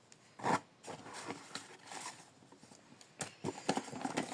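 Small handmade craft items being handled and set down: irregular rustles, taps and scrapes, with a sharper knock about half a second in and a quick run of small clicks near the end.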